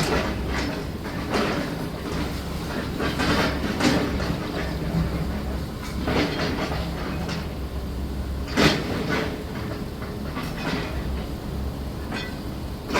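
Demolition machinery at work: a steady low engine hum under irregular metallic clanks and knocks, with a sharp crack about 4 seconds in and the loudest crash about 8.5 seconds in.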